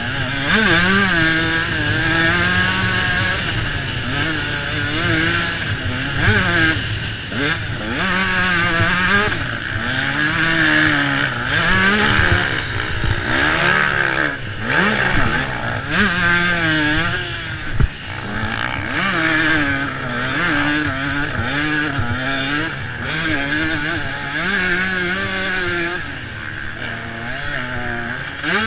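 Motocross dirt bike engine ridden hard, heard from a camera mounted on the bike: the revs climb and drop again and again through the gears, with wind and rattle over it and one sharp knock a little past halfway.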